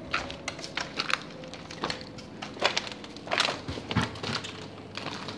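Footsteps crunching over rubble and broken wood: an irregular series of cracks and crunches.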